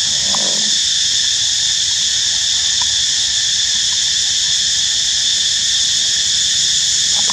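Steady, loud insect chorus: a shrill drone held at several pitches at once, without a break.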